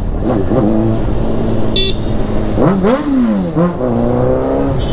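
Honda CBR600RR's inline four-cylinder engine with a Yoshimura exhaust, revving hard under way: its pitch climbs, drops sharply and climbs again a couple of times as the revs rise and fall. A brief high beep sounds about two seconds in.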